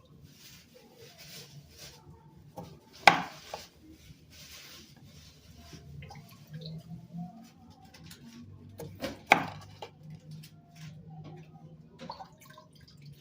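Kitchen counter work: a knife tapping and scraping on a cutting board with small clicks, and two loud sharp knocks about six seconds apart.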